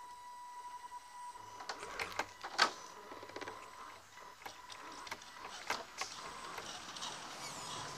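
Electric motor and gearbox of a radio-controlled scale crawler whining steadily as it creeps along, with scattered clicks and knocks from the truck working over rocks and roots. The whine fades after about four seconds, and a sharp knock stands out a little before the middle.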